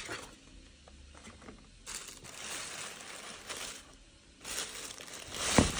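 Tissue paper and a paper insert rustling and crinkling as a shoe box is unpacked, in two spells. A sharp knock near the end.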